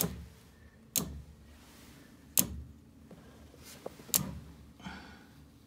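A few sharp knocks and clicks, four in all, a second or more apart, with a short rustle near the end, over a faint low hum.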